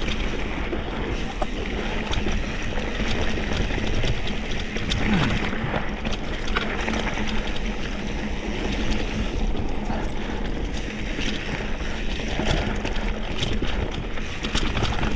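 Mountain bike rolling downhill on a rocky dirt trail: steady tyre and wind rush with frequent small rattles and clicks from the bike over the rough ground.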